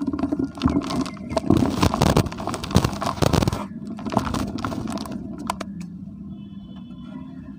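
Hands crushing and crumbling dry dirt clumps over a plastic bucket. Dense gritty crunching and crackling runs for the first three and a half seconds, then thins to scattered crackles as the crumbs fall, dying away about six seconds in.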